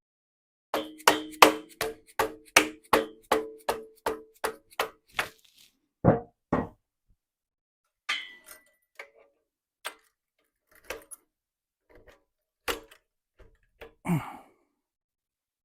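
Metal-on-metal clanking as an M2 heavy machine gun receiver is fitted into an MK93 mount cradle. It starts with a quick run of about fourteen ringing metallic taps over four or five seconds, then two duller knocks and scattered clicks and clanks.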